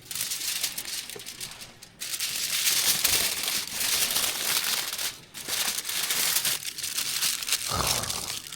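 Aluminium foil crinkling and crumpling as it is handled around a seasoned whole pork belly. The rustle comes in long stretches, broken briefly about two and five seconds in.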